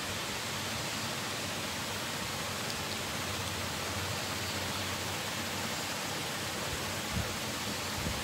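Steady, even hiss of background noise with a faint low hum under it.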